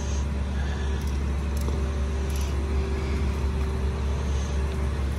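Engine running steadily: an even low rumble with a steady hum over it, with no change in speed.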